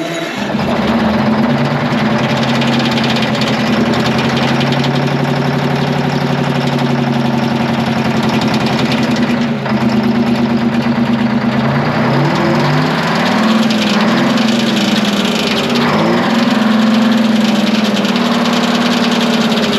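Twin-turbo Detroit Diesel 12V71 two-stroke V12 generator engine running loud and steady. In the second half its pitch dips briefly and recovers several times.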